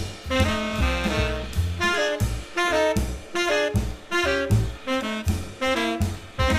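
Background instrumental music: a jazzy melody of quickly changing notes over a bass line and drums.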